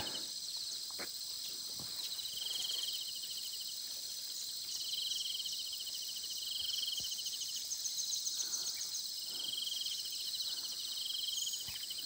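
Forest insect chorus: a steady high, shrill buzzing, with short pulsing trills about a second long repeating several times at a lower pitch.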